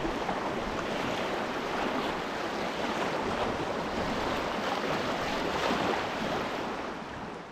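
Steady rush of flowing river water, fading away near the end.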